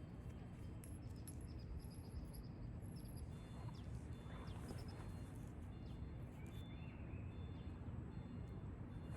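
Outdoor ambience: a steady low rumble, with faint, short, high-pitched chirps repeating through it and a brief chirp about seven seconds in.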